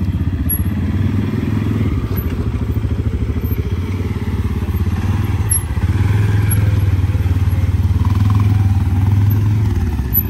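ATV engine running with a steady low chug, a little louder from about six seconds in.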